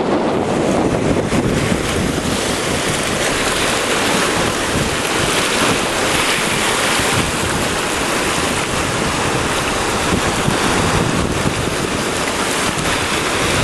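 Ocean surf washing and breaking over shoreline rocks, a steady loud wash of water, with wind buffeting the microphone.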